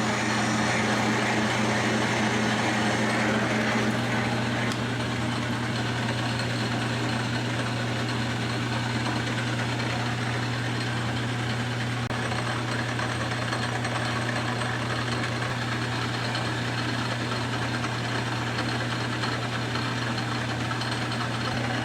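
Metal lathe running steadily while single-point threading a left-hand thread on a shaft, a steady motor hum under an even machining noise, a little louder for the first few seconds.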